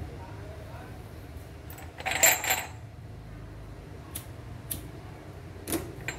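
Small hard objects clinking together: one loud jangle about two seconds in, then a few light clicks near the end.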